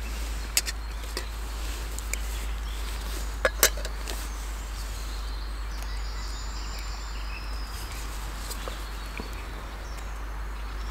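Quiet forest ambience with a steady low rumble and faint, high bird calls, broken by a few sharp clicks, the loudest two close together about three and a half seconds in.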